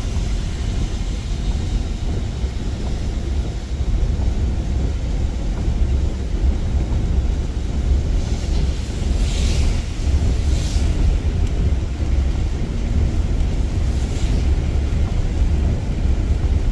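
Car driving on a wet road, heard from inside the cabin: a steady low rumble of engine and tyres, with a few brief hissing swooshes about nine, ten and a half and fourteen seconds in.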